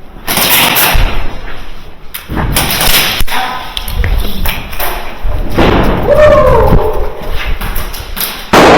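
A run of loud, irregular thumps and knocks close to the microphone, with a short voice-like call about two-thirds of the way through.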